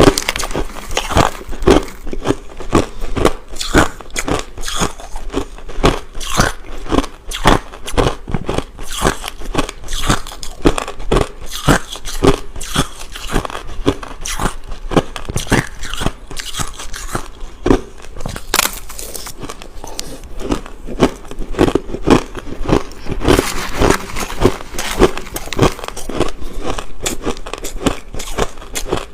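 Crushed ice being bitten and chewed close to the microphone: a dense, irregular run of sharp crunches, several a second.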